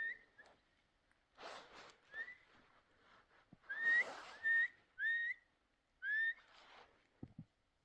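A person whistling to call a dog: about six short, upward-sliding whistle notes, with bouts of rushing noise between them and a couple of dull thumps near the end.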